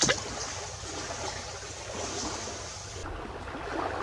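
A sharp splash right at the start as an arrow shot from a PVC-pipe bow strikes the water, followed by steady stream and water noise.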